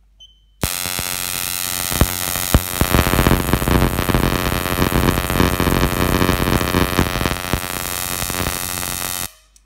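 Spark plug with no ground electrode firing rapidly from a CDI ignition, about 90 sparks a second: a loud, harsh electric buzz of crackling sparks with a few sharper cracks about two seconds in. It starts abruptly just under a second in and cuts off suddenly near the end.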